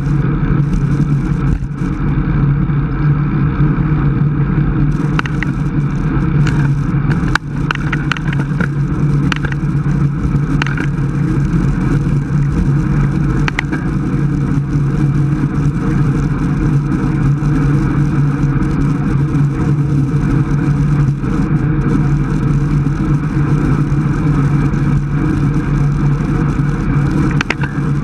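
Steady rush of wind on a bike-mounted camera's microphone, with road and tyre noise from a road bicycle riding at about 24 mph. A few short clicks and knocks come between about five and eleven seconds in.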